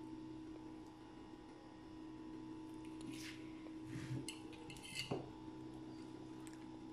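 Metal pizza server scraping and clinking faintly against a glass pie dish and glass bowl as a pizza slice is cut and lifted out. A few short scrapes and clicks come about three to five seconds in, over a faint steady hum.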